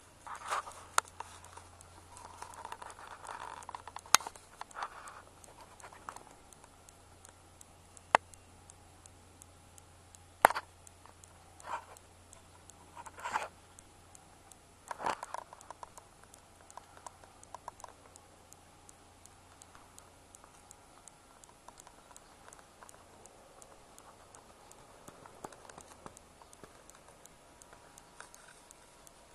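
Scattered scratches, clicks and rustles of a hand-held camera being handled, most of them in the first half, over a faint steady hum that fades out about two-thirds of the way through.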